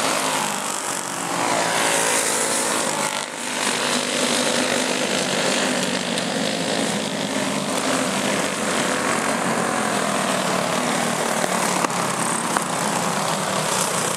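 Several racing go-kart engines running hard together, a buzzing whine that rises and falls in pitch as the karts accelerate and pass.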